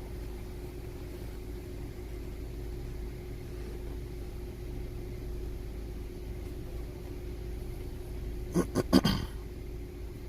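Steady low hum of the car running, with a quick run of about four short clicks near the end.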